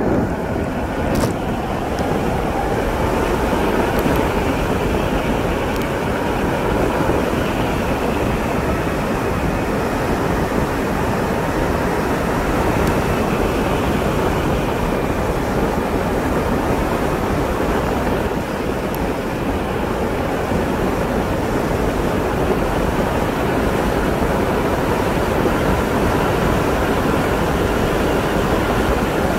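Steady rush of wind and tyre noise from a vehicle moving along an asphalt road, with a faint whine that rises in pitch over the first several seconds and then holds.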